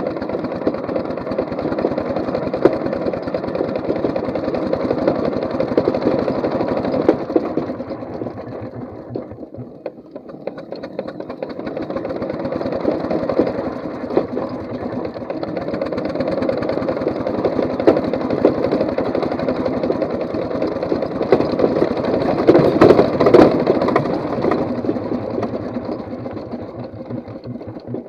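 4-inch scale McLaren steam traction engine running under way, with a fast, even mechanical beat. It eases off about ten seconds in, then picks up again and is loudest a little before the end.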